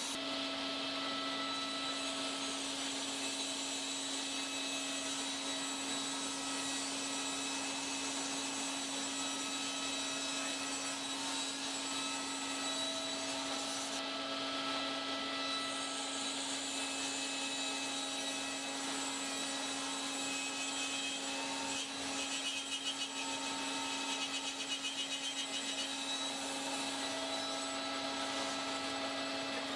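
SawStop table saw running steadily, a constant motor hum with an even whir over it.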